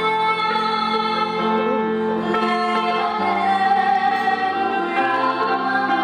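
A woman singing over plucked string accompaniment from an acoustic guitar and a sape, the Sarawak boat-shaped lute.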